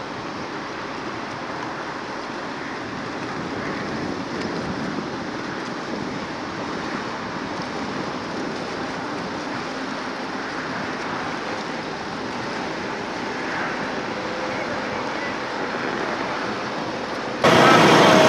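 1945 GMC DUKW amphibious truck's straight-six engine running as the vehicle moves through the water, a steady engine sound mixed with water wash and some wind. Near the end it cuts suddenly to the same engine much louder, heard close up from inside the cab.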